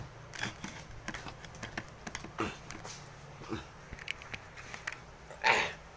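Eating noises: scattered soft clicks and smacks, with one brief louder noise about five and a half seconds in.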